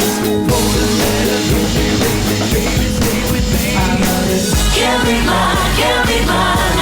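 A band playing South Louisiana roots music, with a voice singing.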